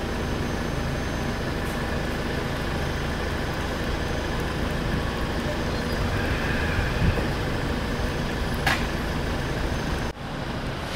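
Steady road traffic on a city street, with heavy vehicles running, and one sharp click late on.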